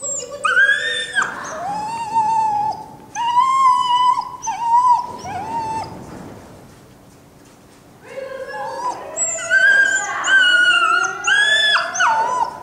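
A dog whining and yelping in high, wavering cries: a string of them over the first five or six seconds, then another run from about eight seconds in.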